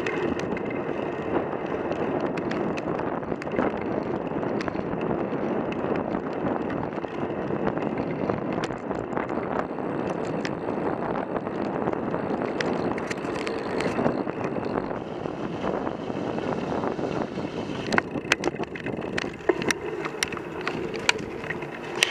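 Road-bike riding noise heard through a handlebar-mounted action camera: a steady rush of tyres on tarmac and wind on the microphone. Sharp knocks and rattles from the mount come through as the bike goes over bumps, more often near the end.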